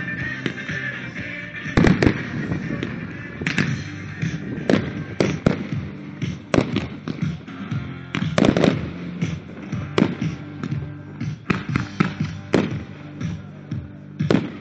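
Fireworks display: shells launching and bursting in irregular bangs, the loudest about two seconds in and again near the middle, over disco music playing from loudspeakers.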